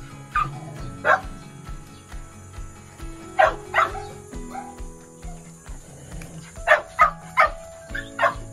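Small dog barking in short, sharp barks: one about a second in, two more a few seconds later, then a quick run of about five near the end. Soft background music plays underneath.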